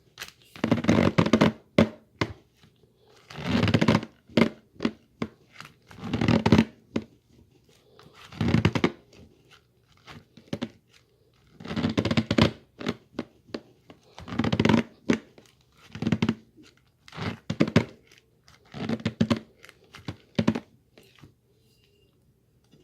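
Brown paper bag being handled, folded and crumpled, with loud rustling and crackling bursts every second or two.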